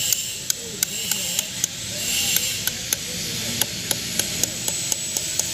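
A hammer tapping a steel chisel into carved stone. The sharp, regular taps come about three a second as the chisel cuts decorative relief.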